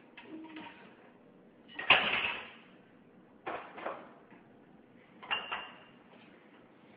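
Dinner plates clattering against each other and the rack of an open dishwasher as they are handled: three separate knocks with a short ring, the loudest about two seconds in.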